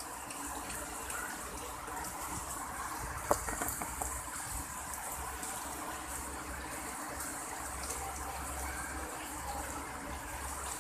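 Heavy rain falling steadily, an even rushing hiss, with one sharp tap a little over three seconds in and a few fainter ones just after.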